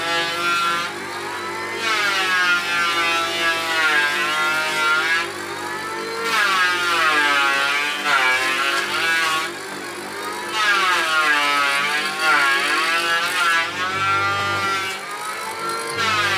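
Electric mortising machine running and boring a mortise into a hardwood beam. Its motor's whine sags in pitch each time the bit is plunged into the wood and picks up again as it eases off. The cuts come in repeated bouts separated by short lulls.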